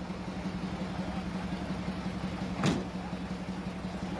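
Vehicle engines running steadily in a low, even hum. About two-thirds of the way in there is one brief falling whoosh, the loudest moment.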